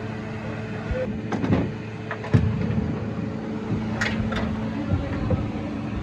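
A steady mechanical hum with several sharp knocks and metallic clinks, about a second apart, typical of tools and parts being handled during work on a car.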